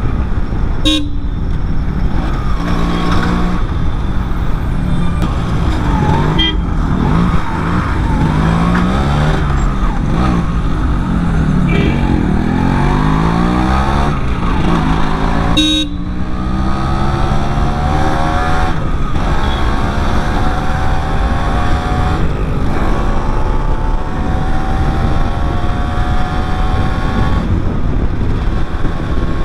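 Yamaha RX135 air-cooled single-cylinder two-stroke engine running under load while riding at speed. Its pitch climbs and falls with the throttle, and after a brief break about halfway through it rises steadily as the bike accelerates, over a constant rush of wind and road noise.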